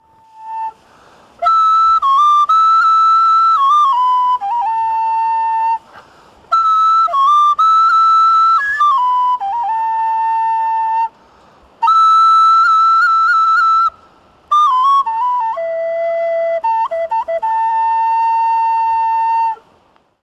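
A solo flute playing a slow melody in four phrases, each a few seconds long, with short breaks between them. The notes are held steady, with quick ornamental turns between them.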